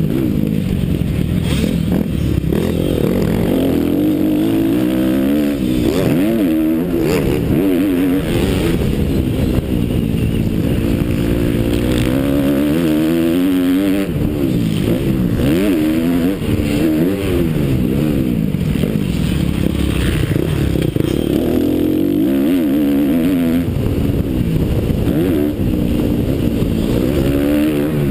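Motocross bike engine, heard from the rider's helmet, revving up and falling back over and over as the rider accelerates, shifts and backs off around a dirt track.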